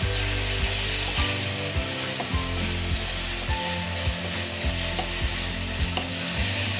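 Spiced onion-garlic masala paste sizzling in mustard oil in an iron kadhai while a metal spatula stirs and scrapes it, with frequent clicks of the spatula against the pan. This is the masala being roasted (bhuna) in the oil.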